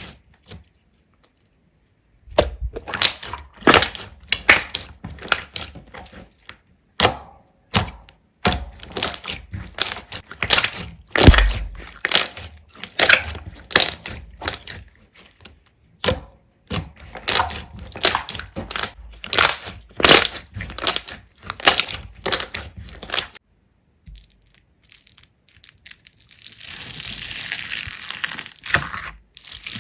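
Slime being squeezed and pressed by hand close to the microphone, giving rapid runs of sharp crackling pops. Near the end there are a few seconds of steady hissing rustle.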